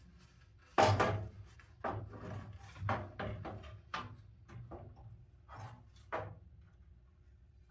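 Aluminium Be Cool radiator being lowered into a car's radiator core support by hand: a loud knock about a second in, then a string of clunks and scrapes as it is worked down into its mounts, stopping about six seconds in.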